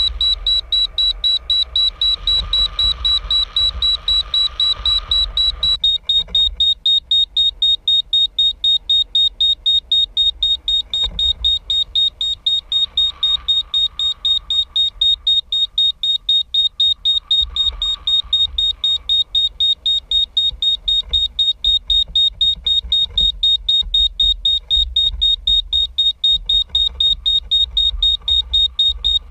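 Locator beeper on a high-altitude balloon payload sounding rapid, evenly spaced high-pitched beeps, with low wind rumble on the microphone as the payload descends. A rushing hiss under the beeps stops about six seconds in, and the beep pitch drops slightly at the same point.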